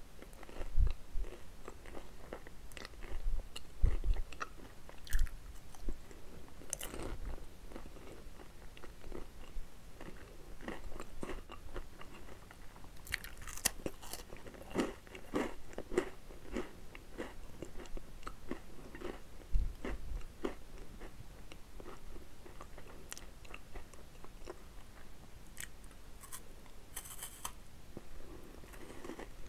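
Close-up eating of a crunchy chocolate-coated snack: crisp bites, then steady chewing with irregular crunches. The loudest crunches come in the first few seconds.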